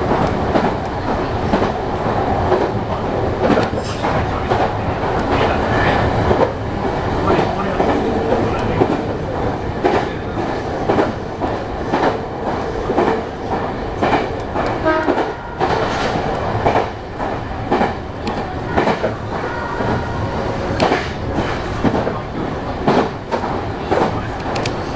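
Meitetsu electric commuter train running along the line, heard from inside the car at the front: steady running noise with irregular clacking of the wheels over rail joints.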